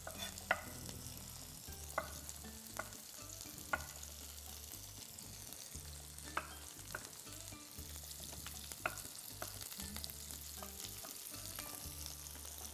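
Onions, garlic and peppers frying in oil in a pan, a steady sizzle. Over it come sharp knife taps on a wooden cutting board, at irregular gaps of a second or two, as tomatoes are sliced.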